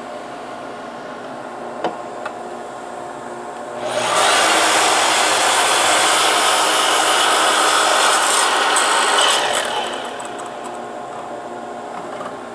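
Sliding mitre saw cutting through a thick wooden board, starting about four seconds in and lasting about six seconds before easing off. Under it runs the steady noise of the dust collector connected to the saw's hood, with two light clicks shortly before the cut.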